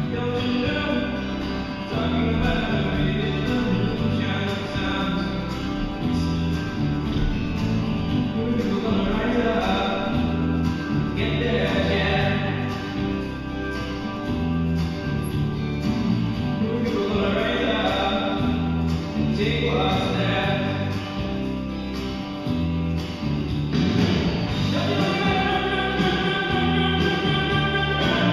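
Music playing: a song with singing over a steady beat.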